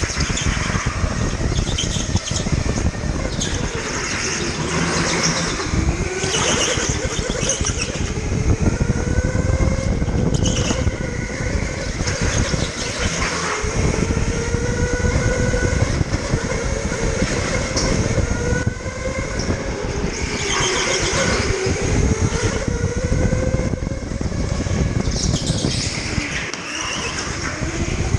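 Electric rental kart's drive motor whining under an onboard camera, the pitch climbing on the straights and dropping into each corner, over loud rolling and rattling noise from the kart. Short high squeals come through in several corners.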